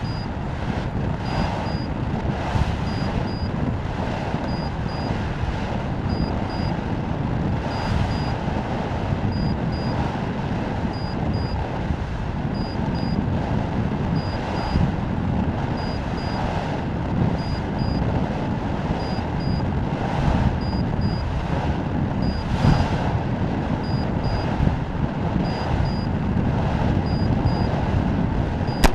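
Steady wind rushing over an amateur rocket's onboard camera microphone as it descends, swelling briefly every second or two. A short, high, faint beep repeats about once a second over it.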